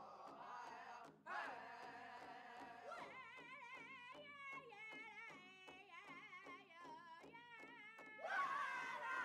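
Background music with a steady beat under a wavering, high melody line, growing louder about eight seconds in.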